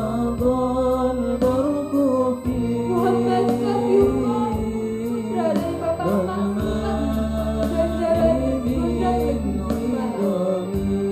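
Male voices singing a melody together over instrumental backing, with sustained low notes and a steady beat.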